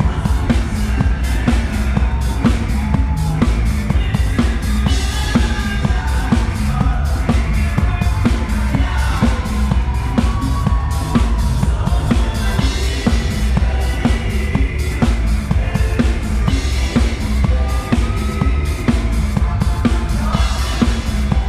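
A live band playing a disco number, with the drum kit close and loud: a steady bass drum and snare beat under melodic lines.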